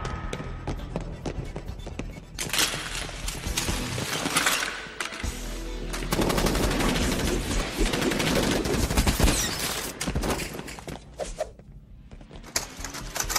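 Film soundtrack of rapid automatic rifle fire, with a burst about two and a half seconds in and a longer stretch from about six to eleven seconds, mixed with the film's music score. The firing drops away near the end.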